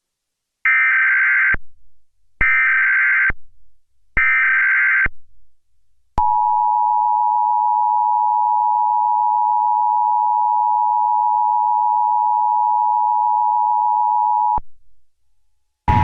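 Emergency Alert System test signal: three short bursts of warbling SAME header data tones, each just under a second, then the EAS two-tone attention signal (853 and 960 Hz) held steady for about eight seconds before it cuts off.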